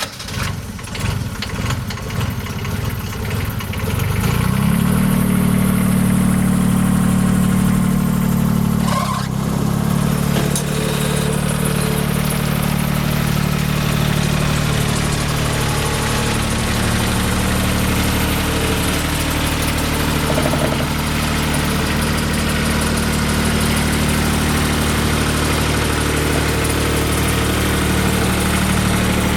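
New Holland L255 skid steer loader's diesel engine running unevenly at low speed for the first few seconds, then rising to a steady higher speed about four seconds in. After a brief dip near nine seconds it runs steadily for the rest of the time.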